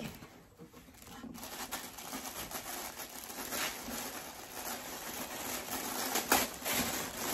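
Tissue paper rustling and crinkling as it is handled and pulled open, with a few louder crinkles.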